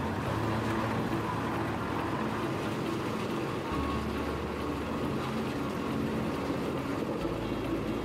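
Komptech Axtor 6010 mobile shredder running steadily under load while processing wood waste, a constant engine drone over the noise of the machine.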